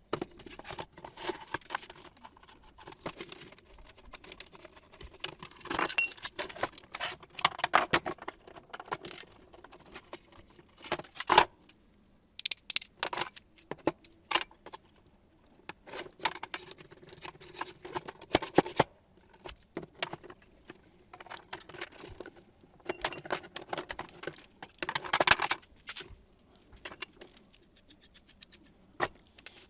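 Small metal parts and tools clinking and rattling as they are handled, in irregular clusters of sharp clicks with short pauses between.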